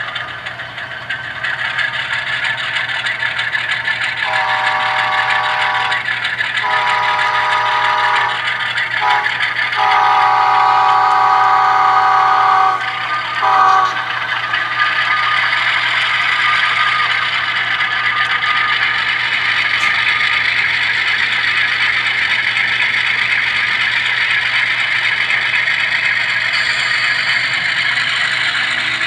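Model diesel locomotive's onboard sound system blowing a multi-note chime horn: two long blasts, a short one and a long one, the grade-crossing signal, followed by a brief extra toot. Under it runs the steady sound of the locomotive's diesel engine and the train rolling on the track.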